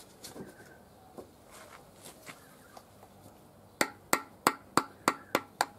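A run of about eight sharp taps, about three a second, each ringing briefly: a tool being tapped to seat the rope rear main bearing seal into its groove in a V8 engine block. Light handling clicks come before the taps.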